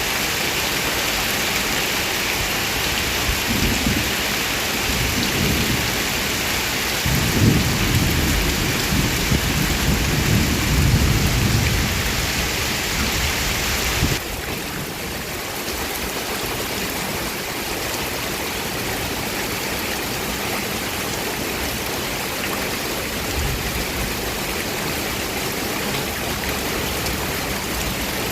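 Heavy rain pouring steadily, with thunder rumbling low, most strongly from about seven to twelve seconds in. About halfway through, the rain's hiss suddenly drops a little and carries on slightly softer.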